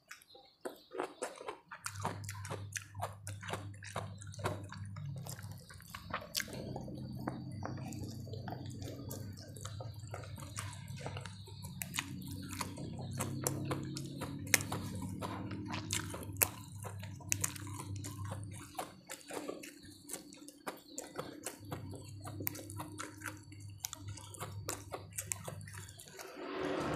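A person eating close to the microphone: chewing and wet mouth smacks, many short sharp clicks in irregular succession. A low steady hum runs underneath and drops out briefly about two-thirds of the way through.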